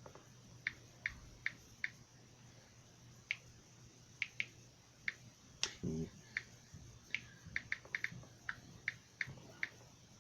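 A series of about twenty light, sharp clicks at irregular spacing, with a short low vocal sound about six seconds in.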